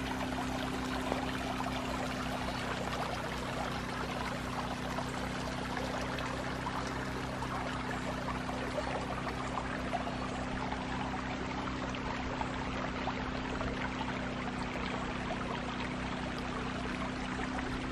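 Water of a shallow stream running and trickling steadily, with a steady low hum underneath.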